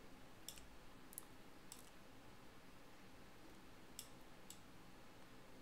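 A handful of faint, sharp computer mouse clicks, about five spread through near silence, as objects are clicked and dragged on screen.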